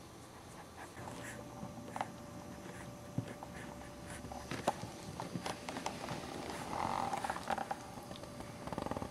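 Boxer puppy moving about on artificial turf: soft scuffing with scattered small clicks, and a short louder noise about seven seconds in.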